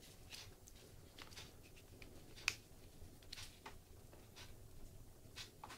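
Faint scattered clicks and taps of small objects being handled, about eight in all, the sharpest about two and a half seconds in.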